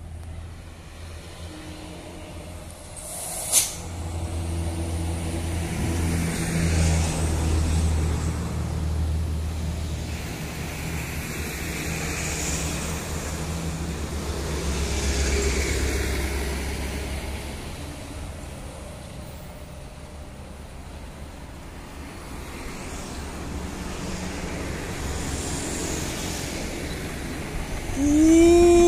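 Road traffic passing: engine rumble and tyre noise swell and fade as vehicles go by, with a heavy low rumble from about four to eighteen seconds in and a sharp click near the start. Just before the end a diesel locomotive's horn sounds loudly, rising then falling in pitch.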